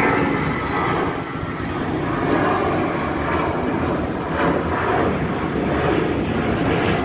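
Jet engines of an American Airlines Airbus A321 climbing out after takeoff: a steady jet noise with a faint whine.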